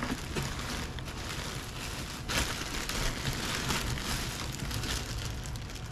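Plastic packaging bag crinkling and rustling as a large bag of fabric is handled, with a louder stretch of crinkling about two seconds in.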